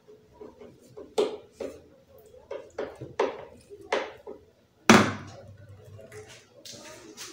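Screwdriver clicking and knocking against screws in a subwoofer's metal back panel, a handful of sharp clicks over a few seconds, then one loud thunk about five seconds in.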